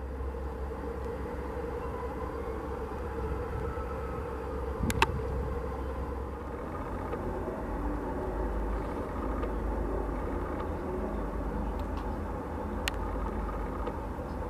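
Airbus A321's CFM56 jet engines idling as it taxis, a steady whine over a low rumble. A sharp click comes about five seconds in, and another near the end.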